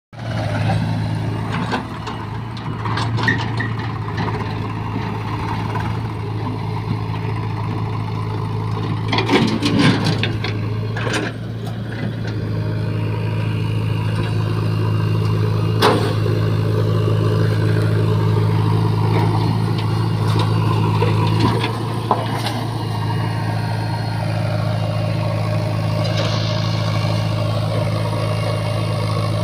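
Diesel engines of a Swaraj 744 FE tractor and a JCB 3DX backhoe loader running steadily at low revs, with a few sharp metallic knocks.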